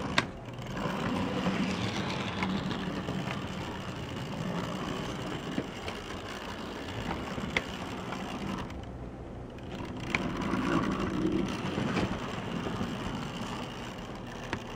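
HO-scale model steam locomotive from the 1960s running along the track: a steady whir of its small electric motor and gears, with a few sharp clicks along the way.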